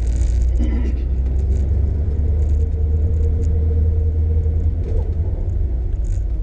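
Car engine and drivetrain running with a steady low rumble, the car freshly fitted with a Tremec T5 five-speed transmission.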